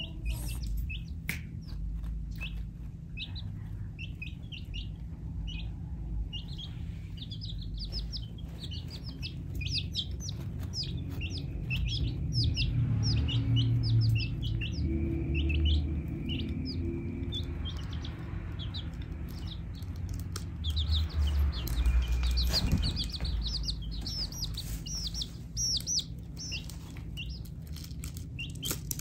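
Baby chicks peeping: short high cheeps, several a second, over a steady low rumble, with a louder stretch of noise in the middle.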